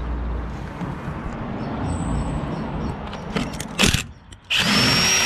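Workshop work sounds: a sharp metallic clatter, then a brief burst of a small motor-driven tool whose whine rises and then holds high for under a second.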